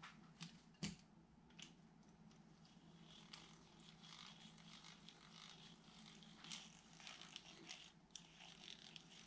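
Daiwa Strikeforce 2500B spinning reel's gearbox turned by its handle, giving faint, irregular clicking and rattling from the gears. The noise is still there after fresh greasing.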